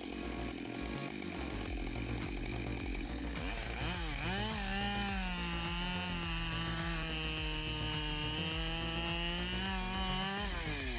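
Chainsaw running rough at first, then revved up about four seconds in and held at high speed, dropping back near the end.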